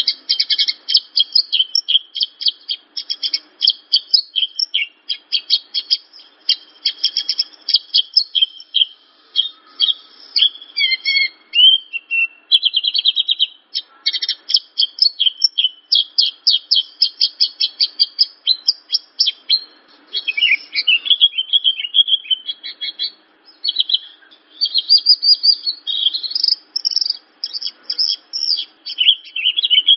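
Javan bush lark (branjangan) singing: a fast, continuous stream of high chirps and trilled runs, with only brief breaks.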